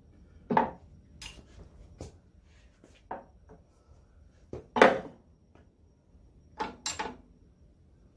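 Irregular sharp metal clanks and knocks of tools and parts against the cast-iron crankcase of a 3 hp International Harvester Type M engine as it is taken apart. The loudest comes about five seconds in, and two come close together near the end.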